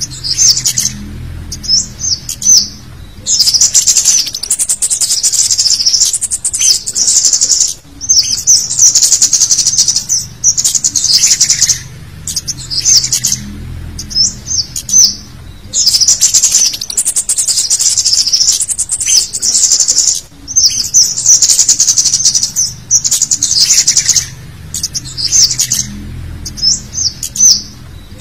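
Recorded lure call of cit kemade songbirds: busy, high-pitched chirping and chattering in bursts of one to two seconds with short pauses between them. It is a 'ribut' (busy) mix of cit calls, played to draw wild cit kemade in.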